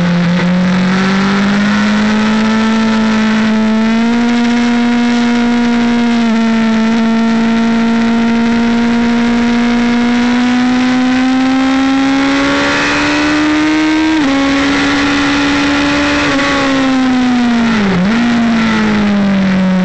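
Racing motorcycle engine heard from an onboard camera at speed on a track. The engine note climbs steadily with short steps at each gear change. About 18 s in it dips sharply and then falls as the bike slows.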